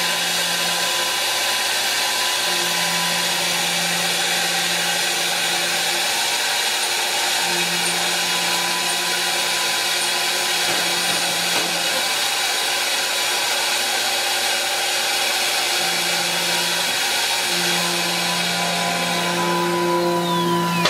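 CNC router spindle running and cutting into a black sheet: a steady hiss of cutting with a constant high whine, and a low hum that cuts in and out every few seconds.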